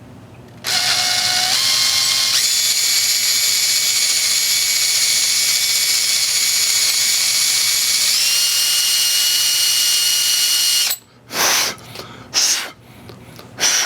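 Power drill boring out a set-screw hole in an aluminium hub with a larger bit, to take an M5 tap: a steady whine that starts about a second in and steps up in pitch a few times, cuts off near eleven seconds, then three short bursts of the drill.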